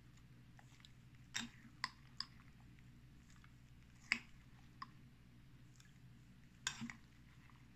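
About half a dozen short, light clicks and taps, spread irregularly over a faint steady low hum.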